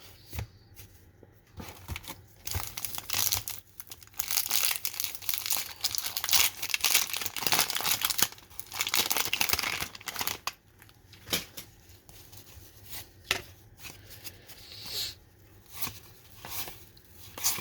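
A pack of 1991 Topps baseball cards being torn open, its wax paper wrapper tearing and crinkling in a dense run of crackling for several seconds. Lighter rustles and clicks of the cards being handled follow.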